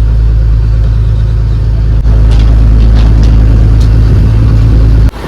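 A fishing boat's engine running with a loud, steady, deep drone. It gets a little louder about two seconds in and cuts off suddenly near the end.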